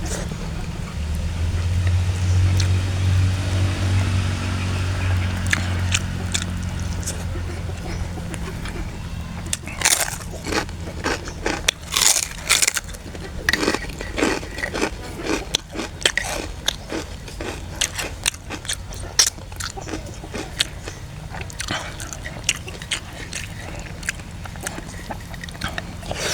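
A person biting and chewing crisp kerupuk crackers: a run of sharp crunches starting about ten seconds in, with a low hum underneath in the first few seconds.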